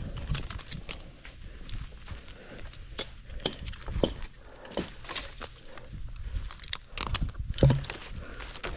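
A tree climber's metal climbing gear clinking and knocking as he moves up the trunk: irregular short clicks and knocks, a few louder ones scattered through.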